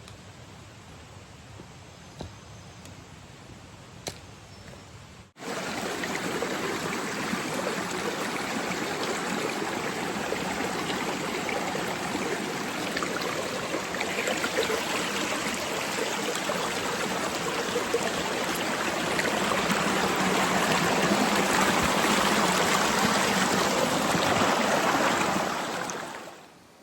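Faint outdoor background with two small ticks, then, from an abrupt cut about five seconds in, a stream running steadily and loudly, fading out near the end.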